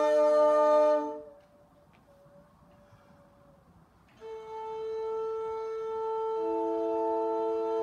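Flute trio playing slow, sustained chords. The chord breaks off about a second in, leaving one soft held note in near silence, and a new chord enters around four seconds, with a lower part joining a couple of seconds later.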